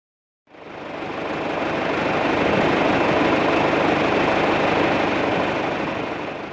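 John Deere 2750 farm tractor's diesel engine idling steadily. It fades in about half a second in and fades out near the end.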